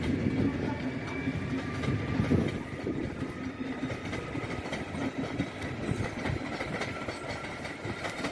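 PKP Intercity Pendolino (ED250) electric train rolling past on a far track: a steady rumble of wheels with clicking over rail joints, easing off slightly as it pulls away.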